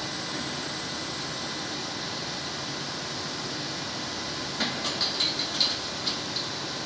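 Steady hiss and hum of textile dyeing machinery. About two-thirds of the way in comes a quick run of sharp metallic clinks and clanks with a short ring, as the lid fittings of a stainless steel dyeing machine are handled.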